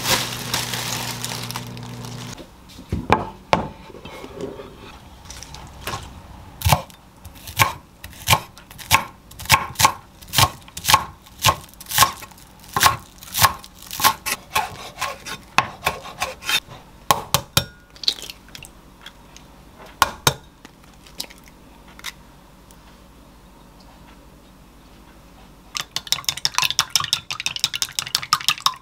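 A plastic bag crinkling as green onions are pulled out, then a kitchen knife chopping green onions on a wooden cutting board, steady chops a little under two a second for about fifteen seconds. Near the end, chopsticks rapidly beat eggs in a glass bowl with quick clicking.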